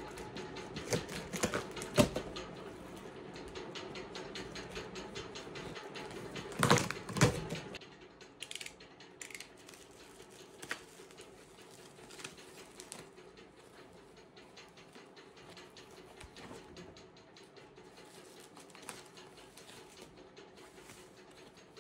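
Box cutter slitting packing tape and working open a cardboard carton: a run of clicks and scrapes, with a few louder knocks about two seconds in and again around seven seconds. After that come fainter, sparser clicks and rustles as the cutter goes through the plastic bubble wrap.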